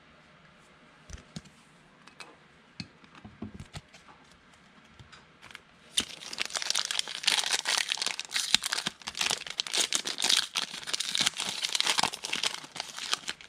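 A trading card pack's plastic wrapper being torn open and crinkled. A few light taps and clicks come first, then about six seconds in a loud, steady crinkling and tearing of the wrapper begins.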